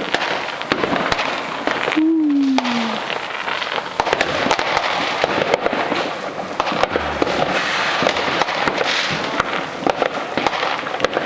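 New Year's Eve fireworks and firecrackers going off, a dense run of sharp pops and crackles. A single tone falls in pitch for about a second, starting about two seconds in.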